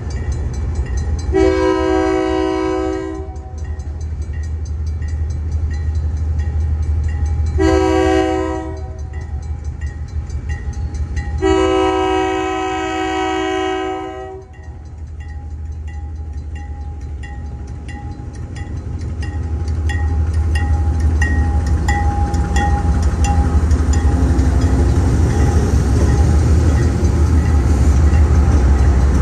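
Six-axle diesel freight locomotives sounding a multi-chime air horn for a grade crossing: a long blast, a short one and another long one, over the steady low drone of the diesel engines. A crossing bell dings evenly throughout. After the last blast the engine sound grows louder as the locomotives draw close.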